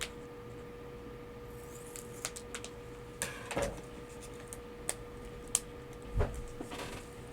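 Scissors and a small plastic bag of seed beads being handled to open the pack: scattered light clicks and taps with short plastic rustles, and a soft thump near the end. A faint steady hum runs underneath.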